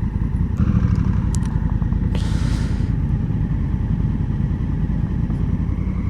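Honda Africa Twin motorcycle engine running steadily under way, heard from on board. A couple of sharp clicks come about a second and a half in, and a brief hiss about two seconds in.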